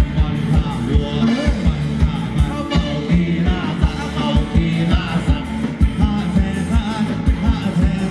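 A live Thai ramwong band playing: a singer over a steady, regular drum beat, loud and continuous.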